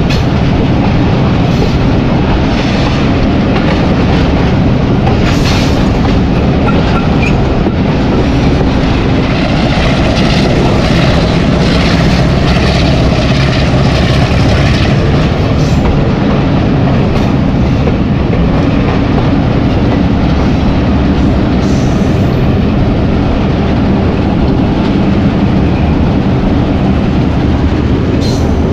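Hitachi PHA-20 diesel locomotive's engine running steadily with the train under way, with the clicking of wheels over rail joints through the middle stretch.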